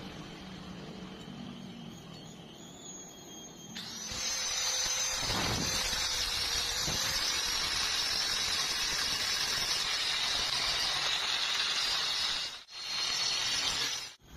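Welding arc hissing steadily, starting suddenly about four seconds in, breaking off for a moment near the end, then striking again briefly.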